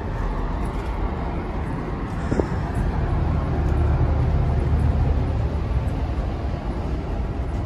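Running noise of a moving Amtrak San Joaquin passenger car heard from inside: a steady low rumble of the wheels on the track, louder for a few seconds in the middle. A brief squeak about two and a half seconds in.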